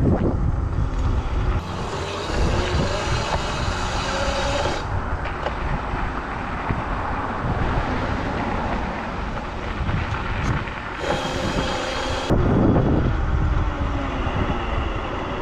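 A modded Razor MX650 electric dirt bike riding at speed, heard as wind rushing over the microphone and tyre noise, with a faint motor whine at times. The sound shifts abruptly a few times.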